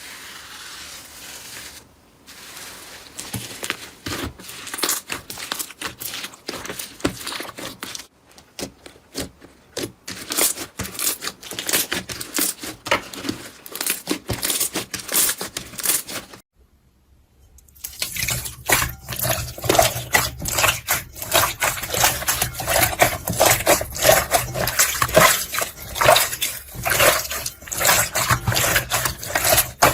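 Slime being squished and pressed by hand, with dense crackling and popping clicks. The sound breaks off briefly three times and is loudest after the last break.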